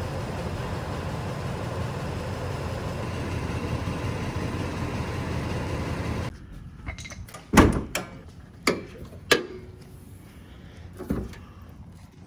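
A steady low rumbling noise that cuts off abruptly about six seconds in, followed by several sharp knocks and clunks, the loudest about seven and a half seconds in.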